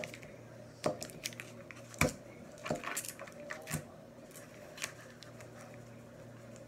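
Silicone spatula scooping soft cream cheese off its foil wrapper and knocking it into a plastic mixing bowl: a scatter of light taps and scrapes, the loudest about two seconds in.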